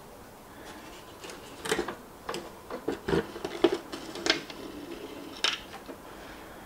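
Plastic shell half of a Gotway Monster electric unicycle clattering as it is lifted off the wheel: a scatter of irregular clicks and light knocks.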